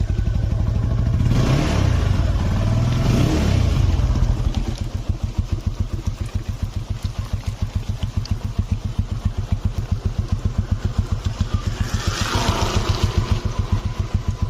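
TVS Apache motorcycle's single-cylinder engine with its exhaust properly fitted, revved during the first few seconds, then idling with an even pulse. It is revved again briefly near the end.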